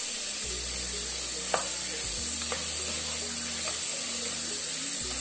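Beef chunks sizzling as they fry with onion and garlic in a pressure-cooker pot, stirred with a spoon: a steady frying hiss with a few light clicks of the spoon against the pot.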